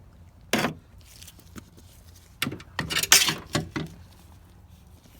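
Metal tool clicking and scraping against a sliding-door plate held on by rivets as it is pried loose: a sharp click about half a second in, then a cluster of clicks and scraping around the middle.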